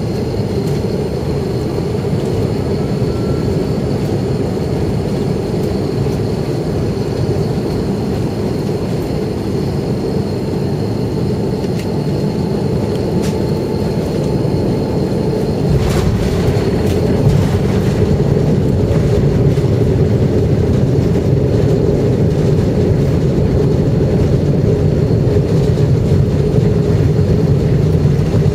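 Airbus A321 heard from inside the cabin on final approach: steady jet engine and airflow noise. About halfway through there is a sudden jolt as the wheels touch down. After it a louder, deeper rumble sets in as the airliner rolls out on the runway.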